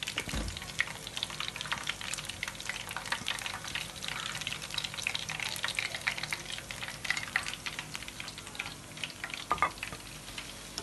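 Hot oil sizzling and crackling steadily around chicken skewers wrapped in shredded samosa-sheet pastry as they finish frying, with a low thump just after the start.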